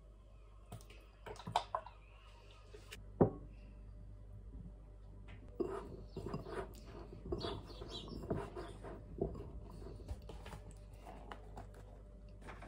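Kitchen food-prep handling sounds: scattered small clicks, one sharp knock about three seconds in, then a run of soft clicks and rustles as a hand tosses tofu cubes with oil and corn starch in a stoneware bowl.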